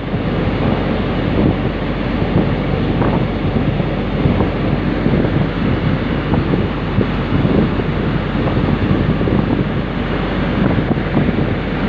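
Wind buffeting the microphone: a steady, rushing rumble.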